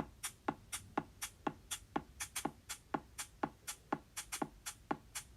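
Electronic background music with a steady beat: a kick drum about twice a second, with crisp high hits between the kicks.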